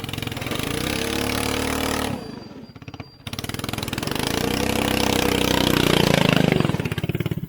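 212cc single-cylinder engine of a go-kart-converted Power Wheels Mustang revving up and holding, dropping off about two seconds in, then revving up again in a longer pull that falls back near the end.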